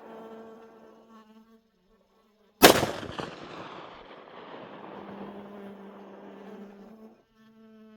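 A single shot from a .44 Magnum Desert Eagle pistol about two and a half seconds in, its echo trailing off over about a second. Flies buzz with a steady hum before and after the shot.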